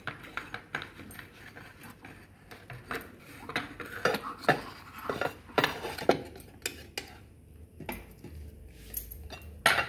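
Metal idli mould plates and a utensil clinking and clattering irregularly as steamed idlis are demolded onto a plate, with a louder clank near the end.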